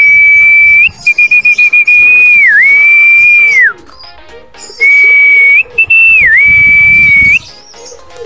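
A person whistling loudly to call a returning racing pigeon into the loft trap. There are two long high whistles, each held on one note with a quick dip in pitch near its end, and the first is broken by a short fluttering trill about a second in.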